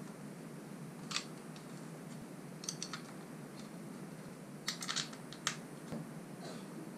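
Scattered sharp plastic clicks and clacks as an e-bike battery mount base is handled against the bicycle's down tube and bolted to the bottle-cage holes with a hex key: a single click about a second in, a few near the middle, and a quick run of clicks a little later.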